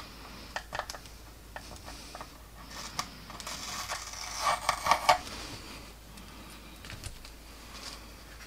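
Fingernails picking and scraping at adhesive paint masks on a plastic model's painted surface, with small clicks from handling the plastic airframe. A denser crackly peeling sound comes about three and a half to five seconds in, as a well-stuck mask is pulled up.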